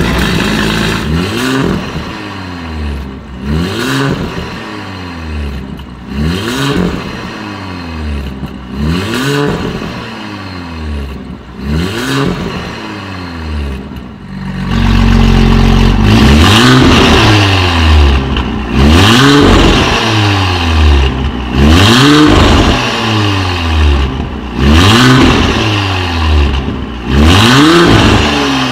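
Porsche Macan 2.0T's turbocharged four-cylinder engine free-revved in repeated blips, about one every two and a half seconds, through a Fi Exhaust valvetronic exhaust. The valves are closed at first; about halfway through they open and the revs become much louder.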